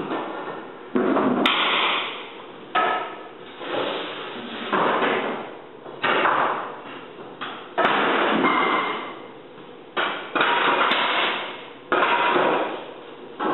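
Heavy knocks roughly every one to two seconds, each ringing out for about a second in the bare room, as hardwood floorboards are knocked into place and nailed down during installation.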